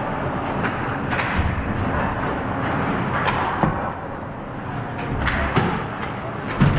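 Ice hockey play close to the net: skate blades scraping the ice under a steady din, broken by sharp stick and puck clacks and a few dull thuds, more of them in the second half.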